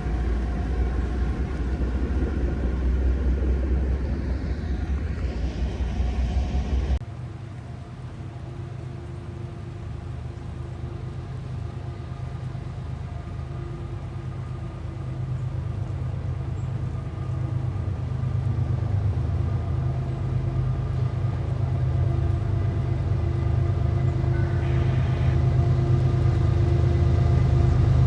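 Heavy low rumble of a train that cuts off abruptly about seven seconds in, followed by the steady hum of diesel locomotive engines that grows gradually louder as they approach.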